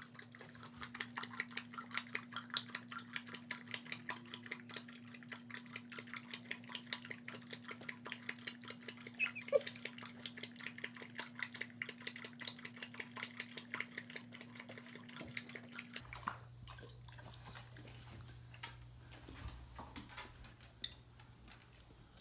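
Dog lapping water from a plastic bucket: a quick, even run of wet laps, about three a second. The lapping stops about two-thirds of the way through, leaving only faint scattered sounds.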